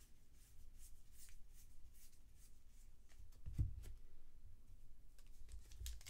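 2020 Bowman baseball cards being flipped through and slid over one another by hand, with faint light swishes and clicks. A soft thump comes about three and a half seconds in.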